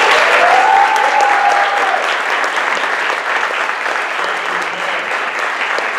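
Audience applauding steadily, a dense patter of many hands clapping. A single held higher tone sounds over it in the first two seconds, and the clapping eases off a little toward the end.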